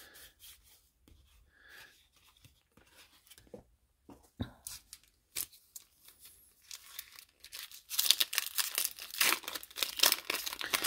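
Foil wrapper of a 1994 Score Series 2 baseball card pack being torn open and crinkled by hand. Faint handling ticks come first, then a few seconds of loud tearing and crinkling near the end.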